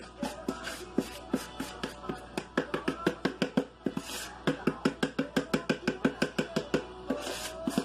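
Rapid, uneven knocking and scraping of a utensil against a plastic mixing bowl as a thick sugar mixture is scraped out into a stainless steel stock pot, about five knocks a second with a short lull around four seconds in.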